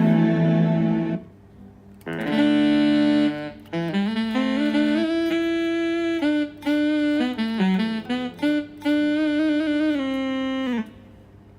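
Roland GR-20 guitar synthesizer playing a lead patch: a held note that cuts off about a second in, then after a short gap a melodic phrase of single notes with pitch slides between them.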